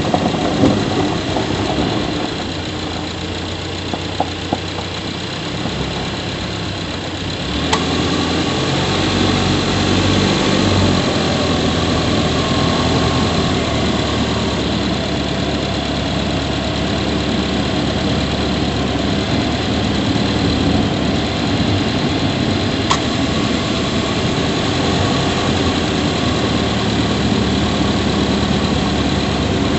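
Subaru Levorg 1.6GT-S's 1.6-litre turbocharged flat-four engine running, heard from inside the engine bay near the intake. It gets louder about eight seconds in and holds steady, with two brief sharp ticks.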